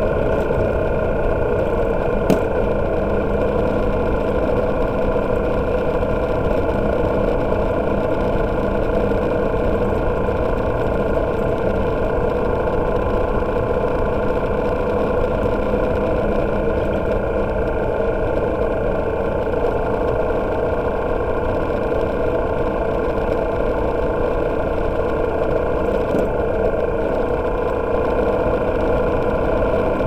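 Motorcycle engine running steadily while riding along at road speed, its engine freshly overhauled. A single short click about two seconds in.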